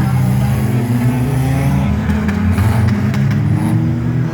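Demolition derby car engines running hard and revving, pitch rising and falling, with a few short knocks in the middle.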